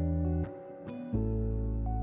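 Instrumental background music: soft pitched notes changing every half second or so over a held bass.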